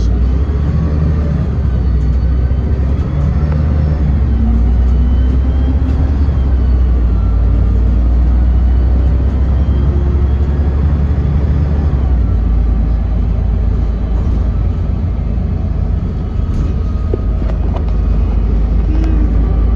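Cabin noise inside a moving city bus: a loud, steady low engine drone under road and tyre noise. The engine note changes about twelve seconds in.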